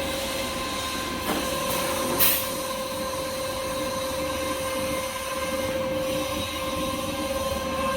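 Kitchen towel log saw cutting machine running with a steady whine, with a short hiss about two seconds in.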